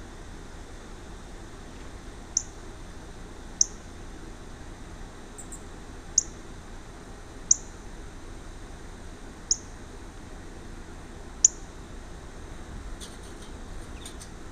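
A small bird at a feeder calling: six short, sharp, high chirps spaced irregularly a second or two apart, over a steady hiss.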